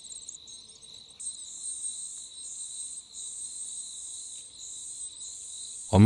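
Common cuckoo chick begging in the nest: rapid, very high-pitched chittering in repeated short bouts, louder from about a second in, over a steady high-pitched whine.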